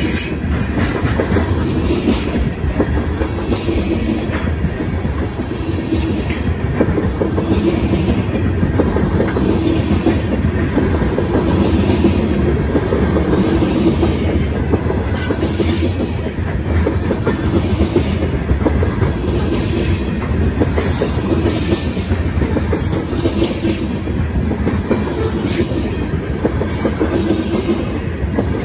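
Covered hopper cars of a freight grain train rolling past: a steady rumble with the clickety-clack of wheels over rail joints. Short high-pitched wheel screeches come every second or two.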